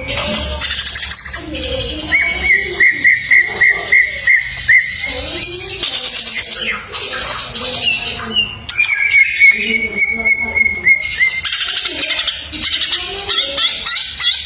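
A cucak ijo (green leafbird) singing a busy, continuous song of quick rising chirps, twice breaking into a run of evenly repeated lower notes.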